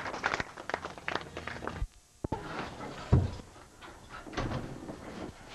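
Crowd noise with many sharp knocks that cuts off abruptly. About three seconds in comes a single heavy thump, the loudest sound, followed by fainter knocks and rustling.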